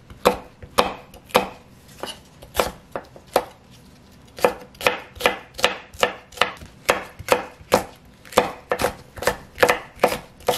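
A chef's knife dicing bell pepper on an end-grain wooden cutting board: quick, even knocks of the blade on the wood, about two or three a second, with a brief pause a little under halfway through.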